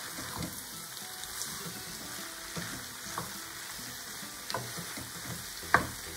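Diced papaya sizzling in oil in a non-stick frying pan as a wooden spatula stirs it, with a few scrapes and knocks of the spatula against the pan; the loudest knock comes near the end.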